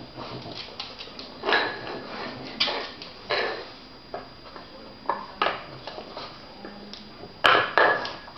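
Irregular clicks and knocks of plastic cups and a wooden puzzle board being nosed about by French bulldogs on a hard floor, with a few louder short bursts of noise; the loudest two come close together near the end.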